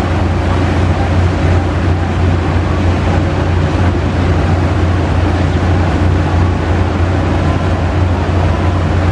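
A river launch's diesel engine drones steadily and low under a constant rush of wind and water.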